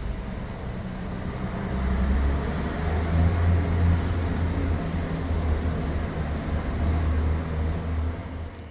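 A motor vehicle's engine running close by: a steady low rumble that swells about two seconds in and holds.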